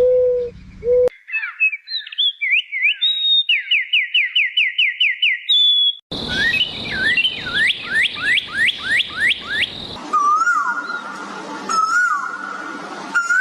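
Bird calls joined with abrupt cuts. A low repeated cooing stops about a second in. Then come quick runs of rising whistled notes, about five a second, and near the end a steady whistled note with brief dips.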